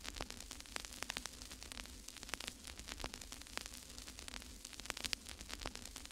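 Faint crackling static: irregular sharp clicks and pops over a steady hiss and a low hum.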